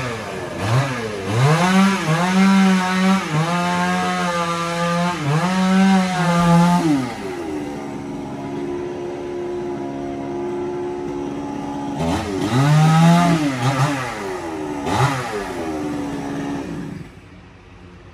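Power saw motor revving up and down in repeated bursts for several seconds, running more evenly for a few seconds, revving again, then cutting off near the end.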